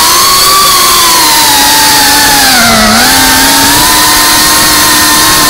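FPV quadcopter's electric motors and propellers whining loudly, the pitch gliding with the throttle: it dips about three seconds in, then climbs back and holds steady.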